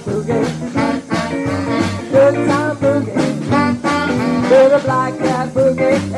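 Live band playing an upbeat boogie with a steady beat.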